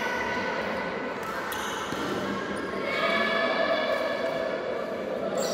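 Badminton play in a reverberant sports hall: a couple of sharp hits, racket on shuttlecock or shoes on the court floor, over a steady hall background.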